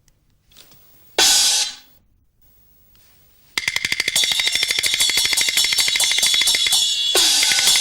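Cartoon soundtrack: a short, loud noisy hit about a second in. From about halfway, a fast, even run of metallic strokes with a steady high ring, like a hi-hat or cymbal roll.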